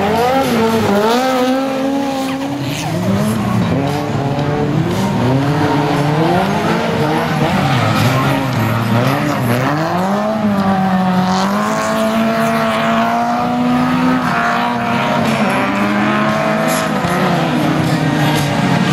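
Off-road vehicle engines revving hard on a dirt track, pitch rising and falling over and over every second or two as the drivers power-slide through the turns.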